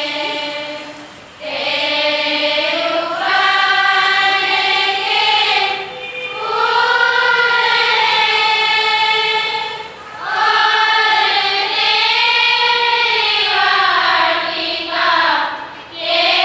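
A group of women singing together, unaccompanied, a slow melody in long held phrases of about four seconds, each followed by a short pause for breath.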